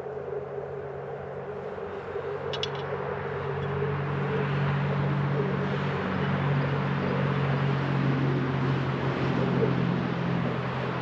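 A motor vehicle going by, its engine and tyres growing louder from a few seconds in and easing off near the end. There are a few light ticks early on.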